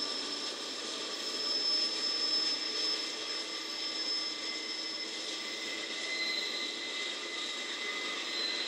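Freight train wheels screeching on a curve, several high squealing tones held steadily over a rumble, as an autorack train rounds the bend. Played through laptop speakers, so the sound has almost no low end.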